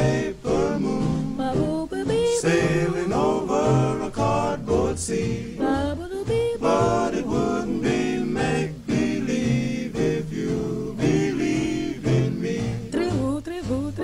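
Music: a song with a singing voice over an accompaniment with a steady bass line.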